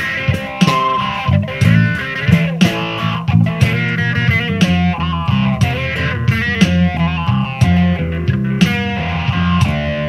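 Blues-rock instrumental passage: an electric guitar plays a lead line with bent notes over bass guitar and a steady drum beat, with hits about twice a second.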